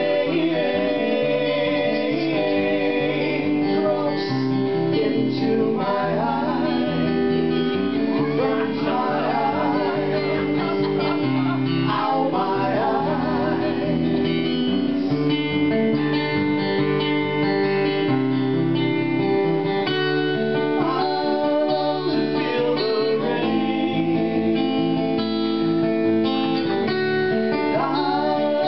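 Acoustic guitar strumming and picking a gentle song, with a voice singing over it.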